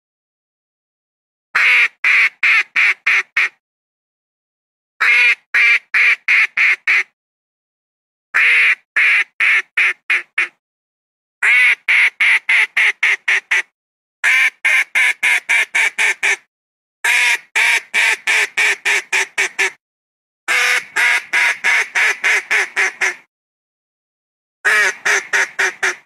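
Duck quacking in repeated runs of quick quacks, about four a second, each run lasting about two seconds with a short silence between; eight runs in all.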